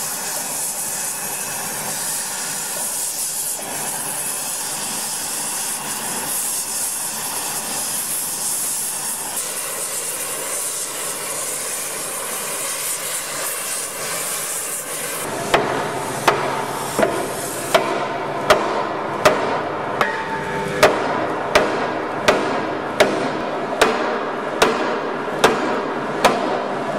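Gas heating torches hissing steadily on the edge of a steel boiler plate being heated for flanging. About fifteen seconds in, regular hammer blows on the hot plate begin over the hiss, about three every two seconds, each with a short metallic ring.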